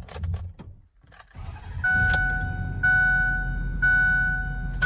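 A few clicks and knocks, then an electronic warning chime sounding over a low rumble. The chime is a steady tone that repeats about once a second, three or four times.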